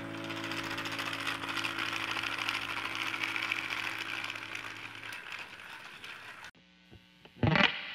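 Battery-powered TrackMaster toy train running along plastic track: a steady small-motor whirr with fast gear clicking, under held music notes that fade out. The sound cuts off about six and a half seconds in, and music starts near the end.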